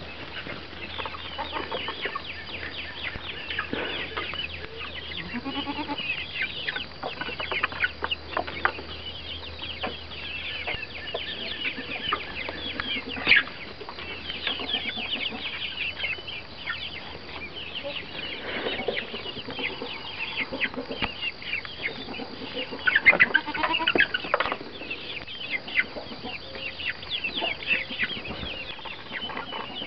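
Birds clucking and chirping, many short calls in quick succession, with a couple of louder calls about halfway through and again later on.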